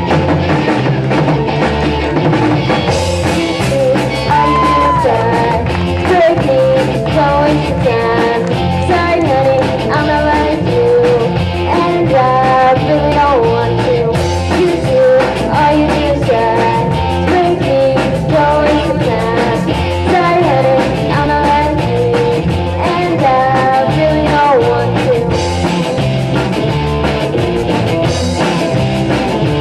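Live rock band playing a song: drum kit and bass keep a steady beat under electric guitar, with a bending lead melody carried over the top from about four seconds in.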